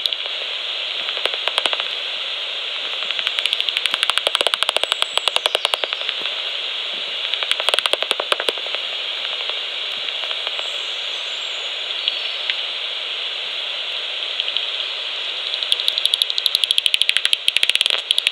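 Magenta Bat5 heterodyne bat detector output: a steady hiss broken by bursts of rapid clicks as passing bats' echolocation calls are brought down into hearing. There are four bursts, about a second in, around the fourth and eighth seconds, and a longer run near the end.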